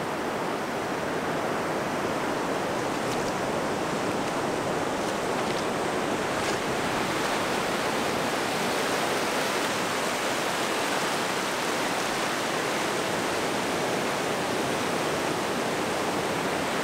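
Steady rush of ocean surf breaking and washing through the shallows.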